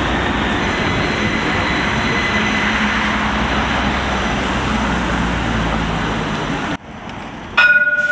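A CAF Urbos tram of the Granada light rail passing close by: a steady rush of wheel and running noise with a low hum. It cuts off abruptly near the end, and a short, loud pitched tone sounds just before the end.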